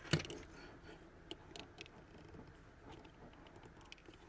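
Faint clicks and taps of plastic parts being handled, as a steering-wheel button module is prodded to find how it is secured in its housing, with one sharper knock just after the start.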